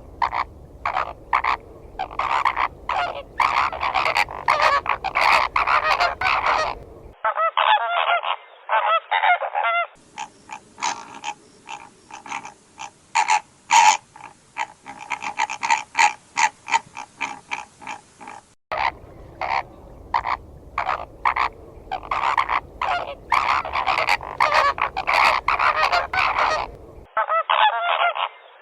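A flock of flamingos calling: many short honking calls in quick, overlapping succession. The sound switches abruptly between separate recordings several times.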